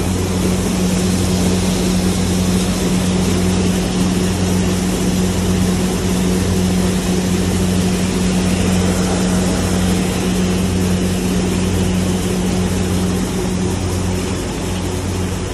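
HELIDA 15ST combined seed cleaner running while processing wheat: a steady low electric-motor hum under an even rushing noise of its fans, screens and grain streaming through the machine.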